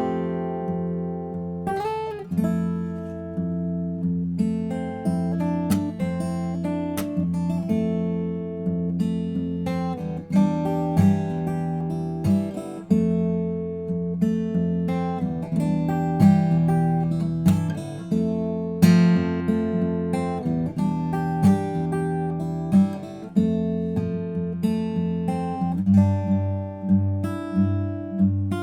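Guild JF-30 jumbo acoustic guitar being played: plucked chords and single notes ringing out, with evenly repeated strokes near the end.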